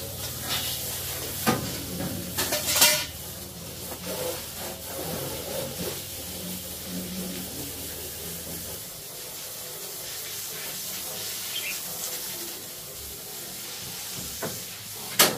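Water spraying from a garden hose onto a truck's steel cargo bed, a steady hiss. A few sharp knocks break in, the loudest near the end, and a low hum underneath stops about nine seconds in.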